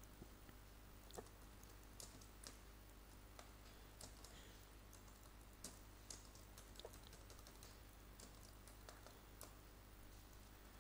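Faint, irregular typing on a computer keyboard: scattered single key clicks at uneven intervals over a steady low hum.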